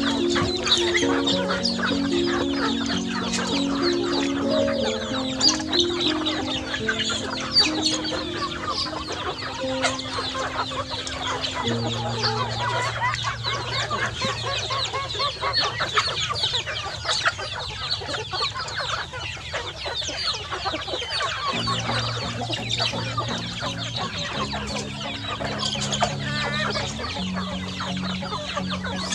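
A flock of chickens calling continuously as they feed, many overlapping short calls, with background music with a slow low melody underneath.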